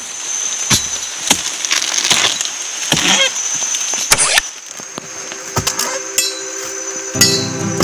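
A string of irregular sharp clicks, cracks and knocks. Background music comes in near the end.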